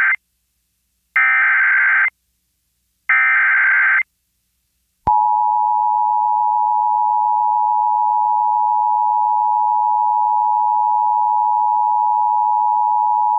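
Emergency Alert System SAME header: the tail of one burst of buzzy digital data, then two more bursts, each about a second long with a second's gap between them. About five seconds in comes the EAS attention signal, two tones at 853 and 960 Hz sounded together, held steady to the end.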